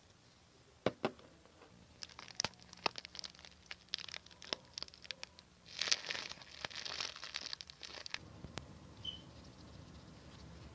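Sticky, crackling clicks and plastic crinkling as red liquid is squeezed from a squeeze bottle onto slime. About six seconds in comes a denser crackling hiss lasting about two seconds as white foam goes onto the slime.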